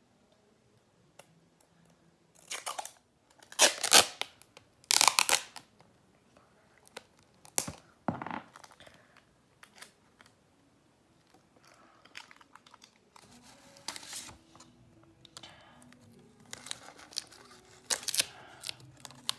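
Plastic being crumpled and torn by hand in a few loud, rustling tearing bursts, the loudest in the first few seconds, then a stretch of smaller crinkles near the end.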